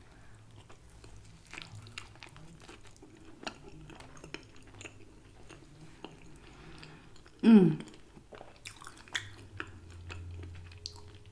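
Close-miked mouth sounds of a person chewing food: scattered wet clicks and smacks. About seven and a half seconds in comes a short hummed vocal sound that falls in pitch.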